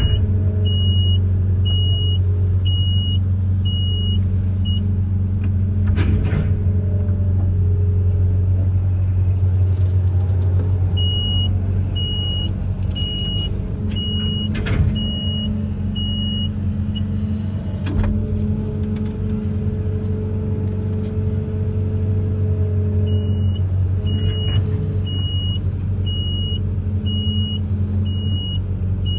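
Amphibious excavator's diesel engine running steadily with a deep hum, while a high warning beeper sounds in three runs of evenly spaced beeps, a little over one beep a second. A few sharp knocks or clanks are heard, the loudest about fifteen seconds in.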